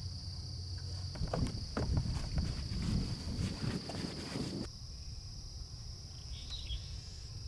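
Marsh insects trilling steadily at a single high pitch, with close knocking and rustling in the first part that stops about two-thirds of the way in.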